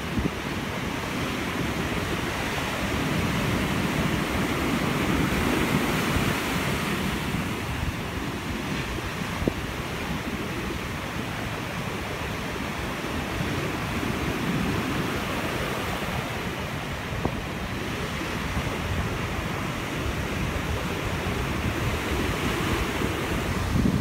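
Storm surf breaking and washing up the beach, rising and falling with each set of waves, with wind rumbling on the microphone.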